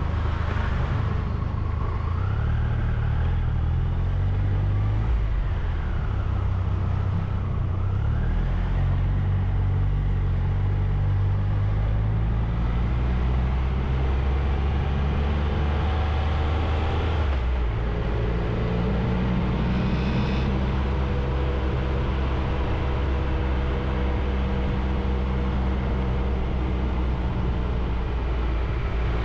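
Triumph Tiger 1200's three-cylinder engine running as the motorcycle rides along a town street, with road noise. The engine note shifts up and down, with an abrupt change a little over halfway through.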